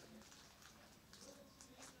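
Faint crackling and small pops from slime filled with polystyrene foam beads being squeezed and kneaded by hand: a quiet scatter of tiny clicks, much like bubble wrap being popped.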